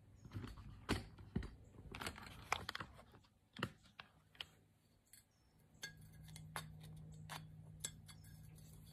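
Light clicks and knocks of a steel screwdriver tip and a porcelain figurine being handled and shifted on a cushioned counter, scattered and irregular, thinning out in the second half. A low steady hum comes in about six seconds in.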